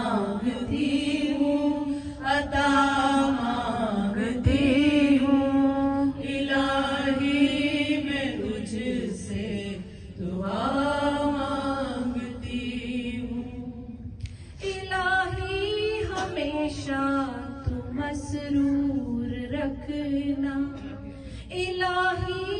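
A woman's voice chanting an unaccompanied devotional recitation in long, drawn-out melodic phrases, with a short pause about 14 seconds in.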